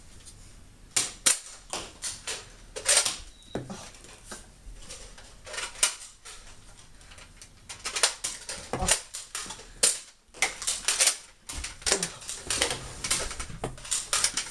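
Nerf blasters being primed and fired: an irregular run of sharp plastic clacks and snaps, coming in clusters.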